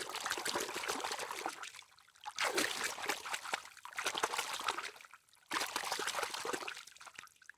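Water trickling and splashing in several short bursts with brief pauses between them.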